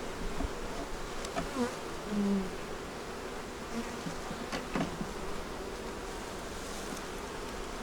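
Honey bees buzzing steadily around an open hive, with a few brief louder buzzes in the first five seconds, as single bees pass close.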